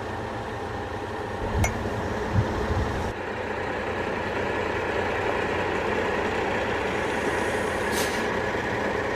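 Heavy tow truck's engine running steadily, with a knock about a second and a half in and a low thump a moment later as a towing rig is fitted onto a trailer hitch.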